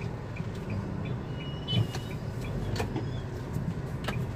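Car cabin sound while pulling in slowly: a steady low engine and road rumble, with the turn-signal indicator ticking evenly about three times a second. A few sharp clicks and a brief higher tone a little under two seconds in.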